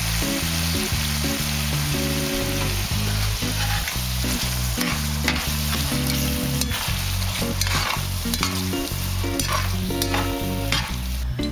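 Button mushrooms and sour cream sizzling in a cast iron frying pan while a utensil stirs them, with sharp clicks and scrapes against the pan, more of them in the second half.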